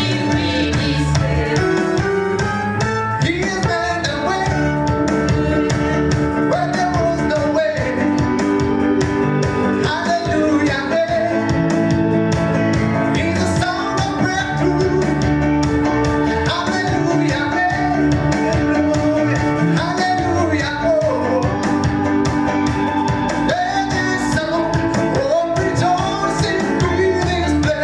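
Worship song: voices singing over instrumental accompaniment with a sustained bass line, playing without pause.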